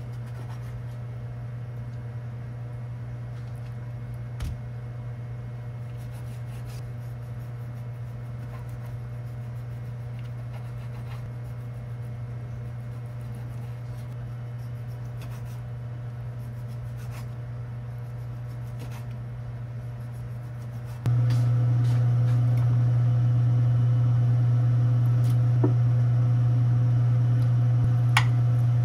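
Steady electric appliance hum, stepping up louder about 21 seconds in, with a few light clicks near the end.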